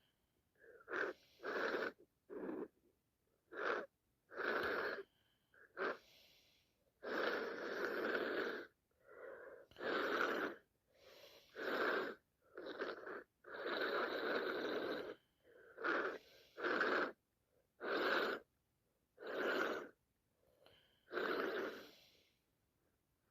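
A woman's congested nose and breathing, blocked by sinusitis: a long run of repeated sniffs and wheezy breaths, some short and sharp and a few drawn out over a second, with brief pauses between them.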